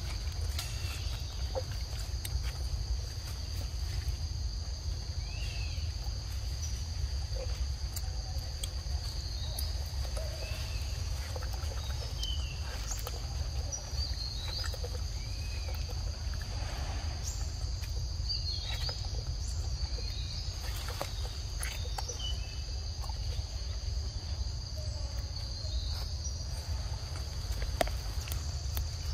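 Steady high-pitched drone of forest insects over a constant low rumble, with short chirps and faint clicks scattered throughout.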